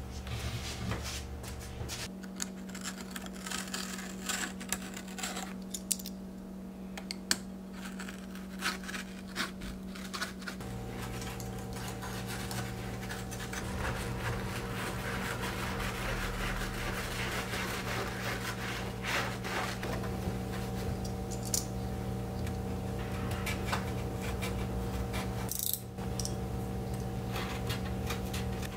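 Scratching and rubbing as hands work carpet and fibre padding around a subwoofer on a car's rear deck board, with scattered sharp clicks and taps, over a steady low hum.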